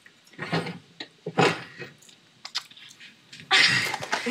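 A girl laughing in a few short, breathy bursts, the last and loudest near the end.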